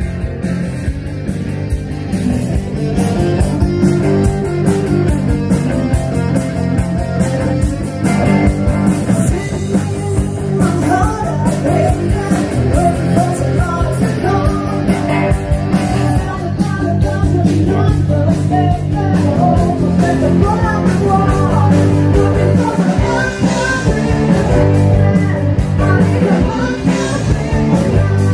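Rock cover band playing a song, with electric guitar, bass and a steady drum beat. A voice sings from about ten seconds in.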